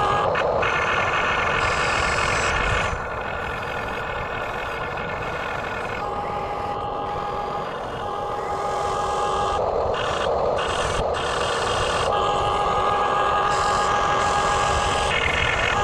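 Electric motors and gearing of a radio-controlled backhoe excavator running, a steady whir. A higher whine comes in for a few seconds at a time, about 6 s in and again from about 12 s to 15 s.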